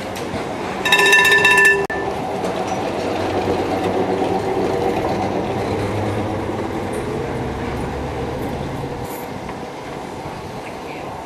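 Tram warning bell rings for about a second, then the tram pulls away past close by, its electric motors humming and wheels running on the rails until the sound fades near the end.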